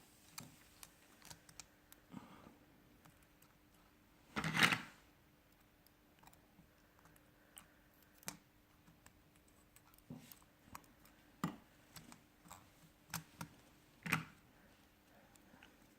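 Small clicks and taps of tools and smartphone parts being handled during reassembly, with a louder clack about four and a half seconds in and another near the end. A faint steady hum runs underneath.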